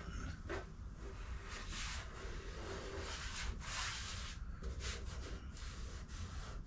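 Faint, irregular rubbing strokes across a car's repaired steel quarter panel, several passes of a second or less each.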